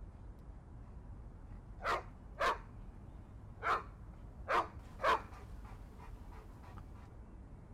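A dog barking five times in short single barks, with fainter repeats trailing off after the last one, over a low steady rumble.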